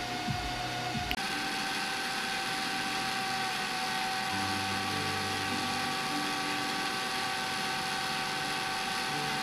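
Cordless drill running at a steady speed, turning the rod chucked in it: a constant motor whine with a hiss. There is a click about a second in, after which the whine shifts slightly in pitch.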